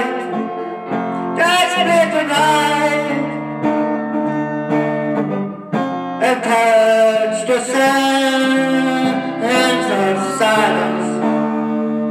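Guitar music: sustained low notes with a wavering melody line over them.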